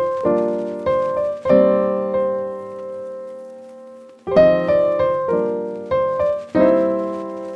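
Background piano music: chords struck one after another, each left to ring out and fade, with a longer fade about two seconds in before the chords resume.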